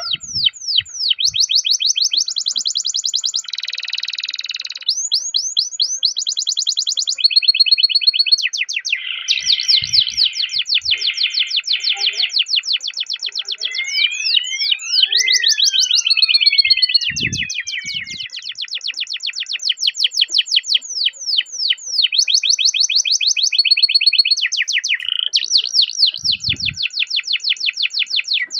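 Domestic canary singing a long, unbroken rolling song: fast trills of repeated sweeping notes, about ten a second, changing to a new trill every second or two, with a brief passage of long sliding whistles near the middle.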